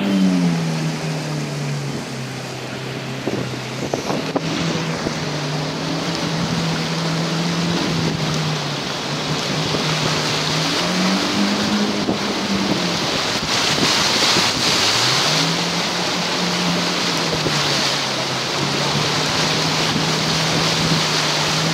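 Car engine running as the car drives through deep floodwater, its hum falling and rising several times with the revs, under a steady hiss of water spraying from the tyres and rain. Heard from inside the car; the hiss is loudest about two-thirds of the way in.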